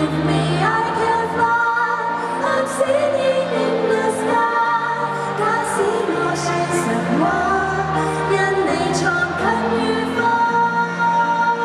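A woman singing a pop song live into a handheld microphone, over pop music accompaniment.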